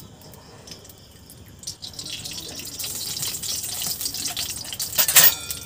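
Cooking oil poured from a plastic bottle into a hot iron kadai, then the oil hissing and sizzling as it heats, building from about two seconds in, with a sharp crackle near the end.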